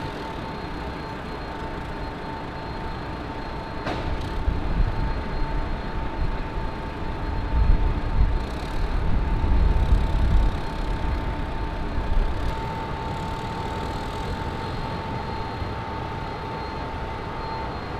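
Forklift engine running, its low rumble swelling louder through the middle and then easing, over a steady high-pitched hum and a single click about four seconds in.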